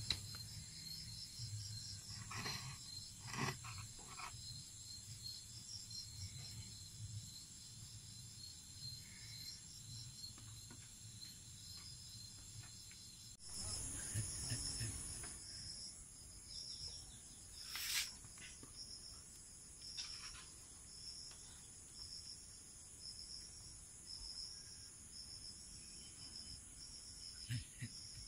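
Insects chirping faintly in a steady, repeating pulsed rhythm, with a few soft rustles and one sharp click partway through.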